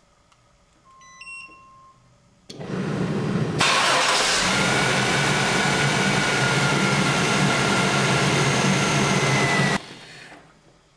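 A 1997 Chevy S10 Blazer's 4.3-litre V6 started by remote start, after a faint short beep. The engine cranks for about a second, catches, and runs steadily for about six seconds, then the sound falls away sharply near the end.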